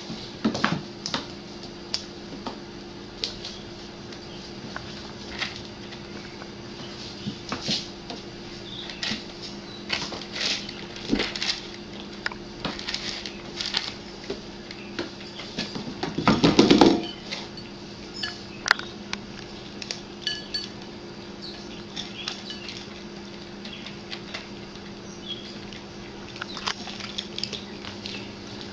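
Cats eating dry kibble from white bowls on a tiled floor: scattered crunches, clicks and clinks of kibble and bowls, with one louder burst lasting about a second past the halfway point. A steady low hum runs underneath.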